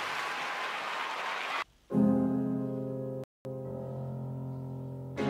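Arena crowd applauding, cut off abruptly about a second and a half in. Then figure skating program music starts: piano playing sustained chords, with a brief total dropout just past the middle.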